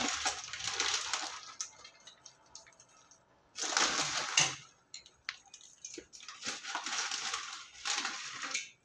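Dry, crunchy namkeen mixture sprinkled by the handful onto katori chaat, its bits rustling and pattering onto the fried cups and the steel tray, in three bursts a couple of seconds apart.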